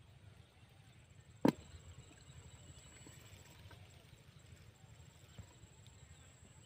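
Quiet outdoor ambience with a faint, steady high-pitched whine, broken once about a second and a half in by a single sharp knock, the loudest sound.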